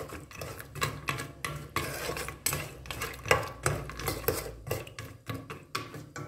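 Wooden spoon stirring raw peanuts in sugar water in a stainless steel pot: the peanuts clatter and the spoon knocks and scrapes against the pot's wall and bottom in quick, irregular strokes.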